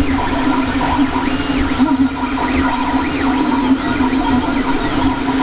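JGAurora A5 3D printer printing: its stepper motors whine in short tones that rise and fall as the print head moves, over a steady hum. It has resumed the print where it left off after being unplugged and plugged back in.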